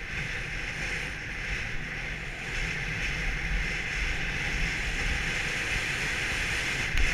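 Skis hissing steadily through snow on a downhill run, with wind buffeting the microphone as a fluttering low rumble.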